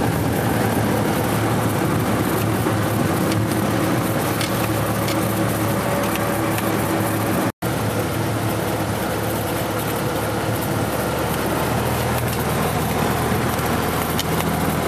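Light single-engine piston aircraft engine and propeller running steadily at low taxi power, heard from inside the cockpit. The sound cuts out for an instant about halfway through.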